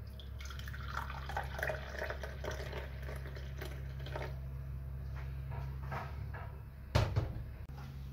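Milky tea poured from a glass French press into a porcelain cup: a steady stream filling the cup for about four seconds, then a few drips. A sharp knock about seven seconds in.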